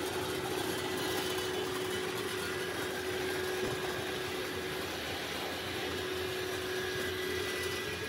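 Daniatech LiquidMaster batch mixer running: its motor and pump make a steady hum with a faint constant whine, with liquid churning as it circulates through the stainless-steel tank.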